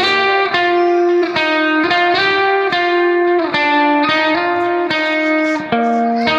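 Background instrumental music: a guitar playing a melody of single plucked notes, each ringing and fading before the next.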